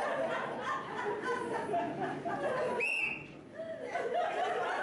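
Several voices chattering and chuckling, with a brief high-pitched tone about three seconds in.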